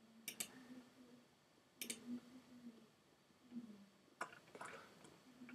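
Faint computer mouse clicks over near silence, a few of them in quick pairs, as points are clicked in to draw lines in SketchUp.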